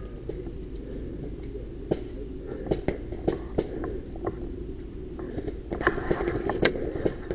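Rustling and scattered sharp clicks and snaps of a player moving through woodland undergrowth, growing busier about five and a half seconds in, with one sharper crack about six and a half seconds in.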